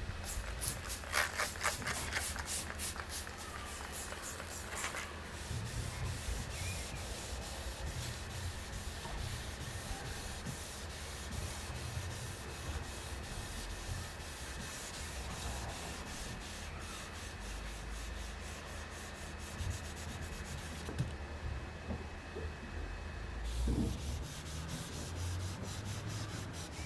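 2000-grit wet sandpaper on a hand sanding block rubbing back and forth over a car bonnet's paintwork, in quick repeated strokes that come thickest near the start and again near the end.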